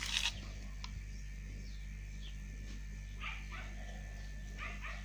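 A dog barking faintly, a pair of short barks about three seconds in and another pair near the end. At the very start there are a few clicks as the old spinning reel is handled.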